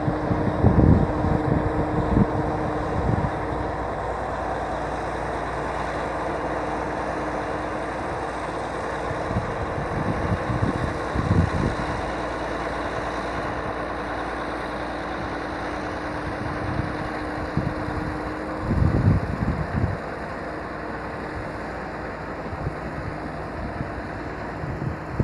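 BEML BD80 crawler bulldozer's diesel engine running steadily, with a few short low rumbling surges; one of its steady tones drops out about two-thirds of the way through.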